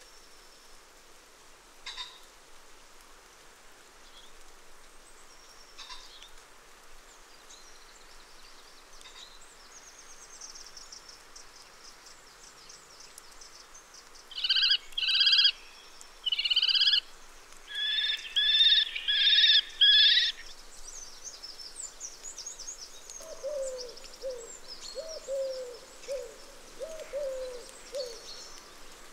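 Young common kestrels calling: a run of loud, harsh, repeated calls in several bursts lasting about six seconds midway, over faint high chirping from small birds. Near the end comes a lower series of short hooting notes from another bird.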